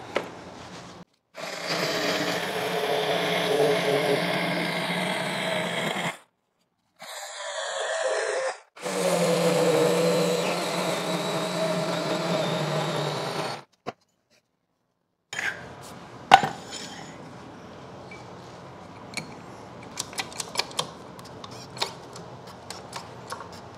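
Battery-powered DeWalt chainsaw cutting through pallet wood in two runs of several seconds, the second starting as the motor spins up. Later, a sharp knock and a run of light clicks as a toe jack's handle is worked under the machine.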